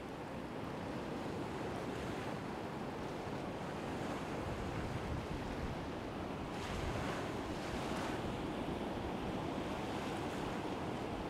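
Sea surf washing against the shore, with wind blowing over the microphone; a wave washes in more strongly about seven seconds in.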